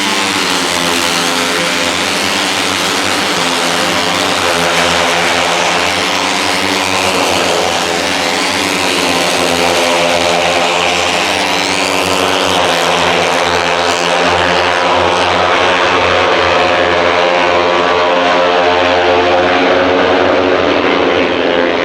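A pack of KTM RC250RBR single-cylinder four-stroke race bikes at racing speed, several engines at once, each rising and falling in pitch as the riders rev and shift gears. The sound is loud and continuous, swelling a little in the second half.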